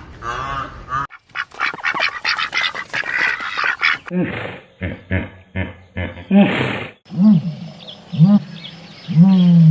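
A series of animal calls that change abruptly twice: arched calls, then about a second in a dense run of rapid pulses, then from about four seconds separate pitched calls.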